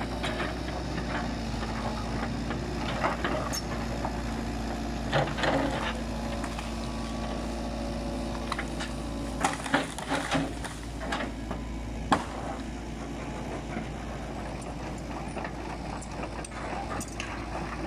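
Hitachi tracked excavator's diesel engine running steadily as its bucket works among felled tree trunks and branches, with sudden wooden knocks and cracks now and then: a cluster about ten seconds in and a single sharp crack about two seconds later.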